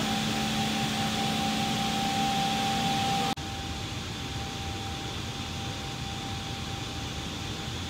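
Steady hum and hiss with a thin whine, from machinery running aboard a parked Airbus A400M, heard inside its cargo hold. The level drops abruptly about three seconds in, then the hum carries on more quietly.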